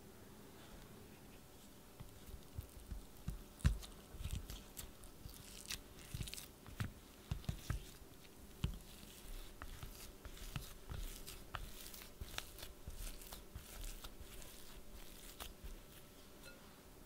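Steamed sweet potato being mashed with a silicone spatula in a glass bowl: soft, squishy mashing with many short, sharp clicks and taps, starting about two seconds in.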